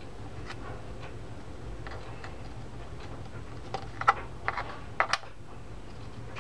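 Light clicks and ticks of small metal fishing-reel parts (drag washers and the main gear) being handled and set down on the bench. There is a faint tick near the start, then a cluster of sharper clicks about four to five seconds in.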